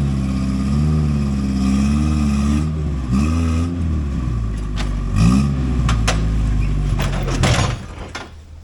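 Off-road rig's engine revving in repeated blips under load on a rock climb, with knocks and scrapes from the rocks, then the engine cuts out near the end: it has stalled, leaving the driver without brake booster assist.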